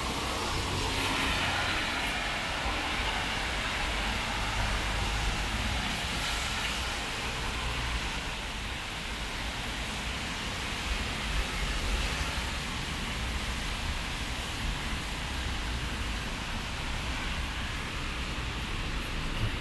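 Traffic on a rain-wet road: tyres hissing on wet asphalt over a steady low rumble, with one vehicle passing close and louder about a second in.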